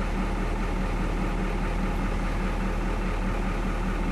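A vehicle engine idling steadily: an even low hum with no change in level.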